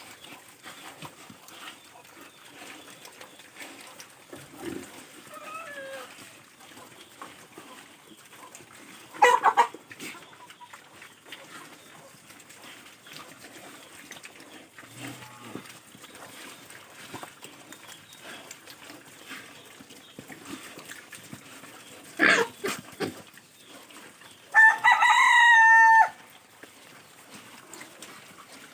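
A rooster crows once, loudly, about 25 seconds in, over a farmyard background. Two short, loud cries break through earlier, about 9 and 22 seconds in.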